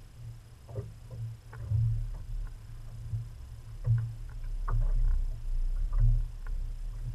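Sounds of a fishing boat sitting on open water: a low, pulsing rumble, with scattered small knocks and slaps, more of them in the second half.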